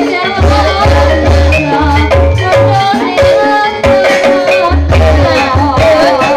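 Live Javanese gamelan music accompanying an ebeg hobby-horse dance: a continuous ensemble of metallophone tones, drum strokes and a wavering melodic line over a pulsing low beat.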